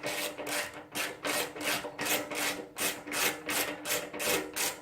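Hand ratchet wrench rasping in quick, even back-and-forth strokes, about three to four a second, undoing a 10 mm bolt.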